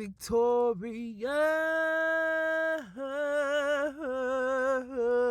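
A solo voice singing a slow melody unaccompanied, with vibrato. It holds one long note from about a second in, then moves through several shorter held notes.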